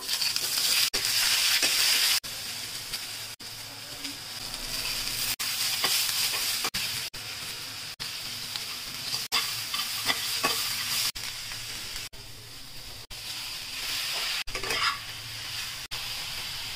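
Chopped vegetables sizzling in hot oil in a wok-style pan, with a steel spatula scraping and stirring them. The sizzle is loudest at the start as onions drop into the oil, and the sound breaks off and resumes abruptly many times.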